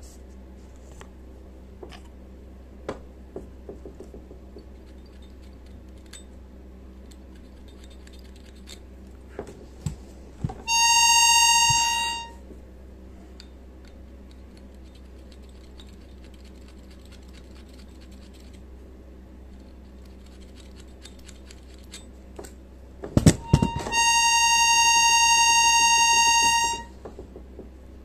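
A single steel accordion reed sounds a steady, harmonica-like high note twice, briefly near the middle and for about three seconds near the end, as its pitch is checked by ear during tuning. A few sharp knocks come just before each note. In between, the tuning tool makes faint scratching and ticking on the reeds.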